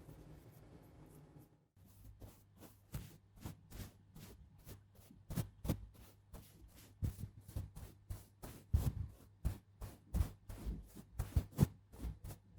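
Rapid, light tapping and clicking on small objects, starting about two seconds in and going on at roughly five irregular taps a second.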